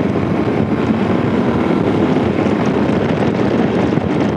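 Heavy wind buffeting on the microphone of a rider on a BMW R 18 Bagger at road speed: a steady, dense rush of wind and road noise.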